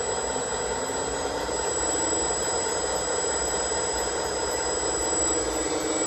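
Hydraulic pump of a 1/10-scale RC Unimog U423 tipper running steadily as the dump bed lifts, a whine that rises slightly in pitch over the first two seconds and then holds.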